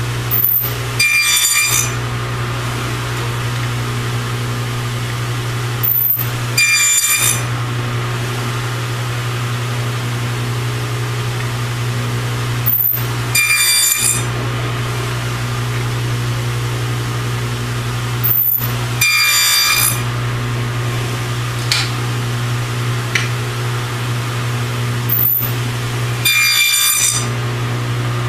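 Table saw running steadily with a box joint jig, cutting through wood five times about six seconds apart, each cut lasting a second or so as the blade bites the hinge fingers.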